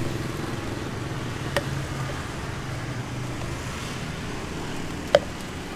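Street traffic, with a vehicle engine running steadily close by. Two sharp clicks cut through it, a small one about one and a half seconds in and a louder one about five seconds in.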